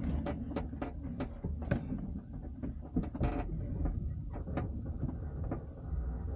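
Irregular clicks and creaks from a glider's cockpit and airframe, over a low steady rumble.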